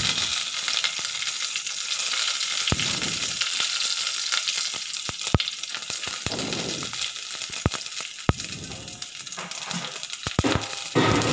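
Mustard seeds and curry leaves sizzling steadily in hot oil in a steel pot, with scattered sharp pops through the sizzle.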